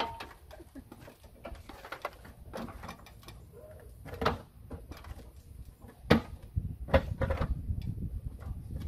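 Irregular knocks and taps from handling and fitting the aluminum gable vent, with two louder knocks about six and seven seconds in.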